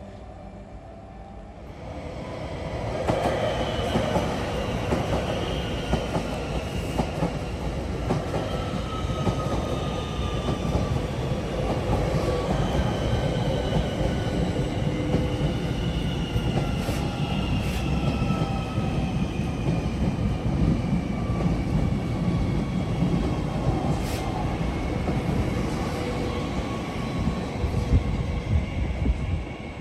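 A train running through the station, loud from about two seconds in, with several high whining tones that slowly fall in pitch and a few sharp clicks; it drops away just before the end.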